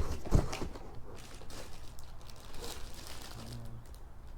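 Packaging and packed accessories being handled: two sharp knocks near the start, then light rustling and crinkling.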